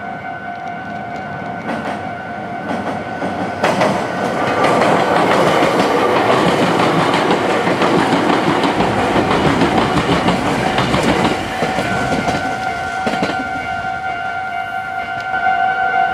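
Railway level-crossing warning bell ringing steadily. About four seconds in, a train passes close by: a loud rush of wheel noise with rapid rail-joint clatter for about eight seconds. It falls away about eleven seconds in while the bell rings on.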